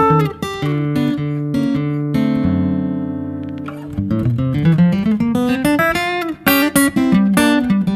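Background music on acoustic guitar: picked notes, a chord held for about two seconds midway, then quick picked notes again.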